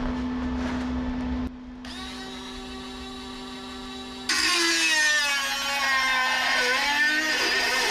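Angle grinder running free, then about halfway through grinding down fresh welds on the steel body panel, loud and gritty, its pitch dropping as it bites. A steady low hum runs underneath.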